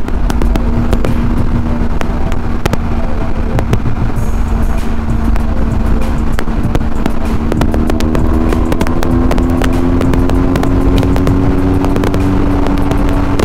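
Motorcycle engine running at highway cruising speed, heard with heavy wind rush and buffeting on a helmet-mounted camera microphone. The engine note holds steady, then rises slightly over the second half as the bike speeds up.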